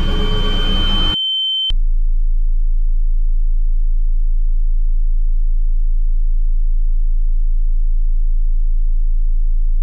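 Dark trailer music cuts off about a second in, a brief high pure tone sounds, and then a loud, steady, very low electronic drone takes over with a slight regular pulse.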